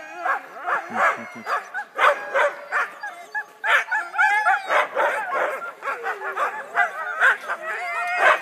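A team of harnessed sled huskies barking and yipping without pause, many voices overlapping: the eager noise of sled dogs hooked up and waiting to run.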